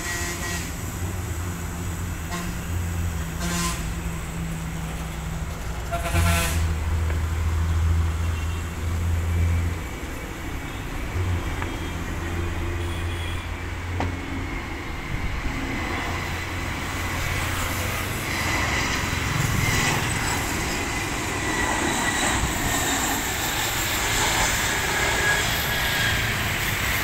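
Roadside traffic rumbling, with three short vehicle horn honks in the first several seconds. From about halfway, the whine and rush of a landing airliner's jet engines grow louder, the whine slowly falling in pitch as the aircraft passes and nears touchdown.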